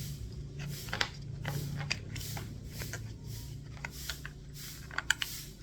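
A small plastic cable organizer being handled and fitted by hand: repeated rustling with sharp clicks, a cluster of clicks near the end, over a steady low hum.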